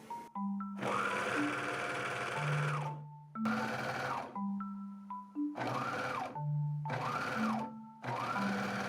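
Sewing machine stitching in about five short runs, with brief stops between them, over light background music.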